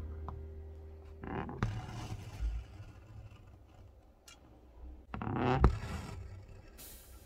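Embroidery thread being drawn through fabric stretched taut in a hoop, heard as a few soft scraping rasps, the loudest about five seconds in. The tail of background music fades out in the first second.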